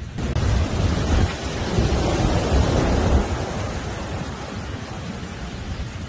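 Heavy surf: large waves breaking and foaming in toward the shore, a rushing noise with a deep rumble that swells about half a second in and eases off after about three seconds.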